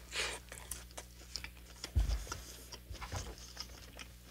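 Close-up chewing of a Hot Cheetos–coated fried chicken sandwich. A crunchy bite comes at the start, then wet chewing clicks and smacks, with a low thump about two seconds in. A steady low electrical hum runs underneath.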